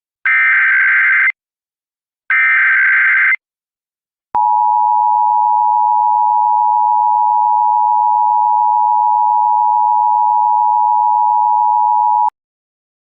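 Emergency Alert System SAME header: two buzzy data bursts of about a second each, the end of the three-burst digital header. About four seconds in, the EAS two-tone attention signal starts and holds steady for about eight seconds, then cuts off. This is the standard opening that announces an emergency alert message.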